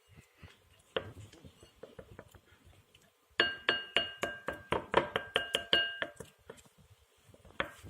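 A utensil stirring glue and hot water in a bowl: faint scraping at first, then, a few seconds in, a quick run of ringing clinks against the bowl's side for about three seconds.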